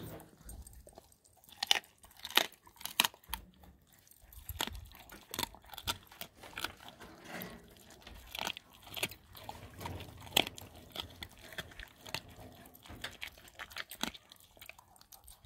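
Dog crunching and chewing a turkey neck: a run of irregular sharp crunches and bites, the loudest about 2 to 3 seconds in and again near 10 seconds in.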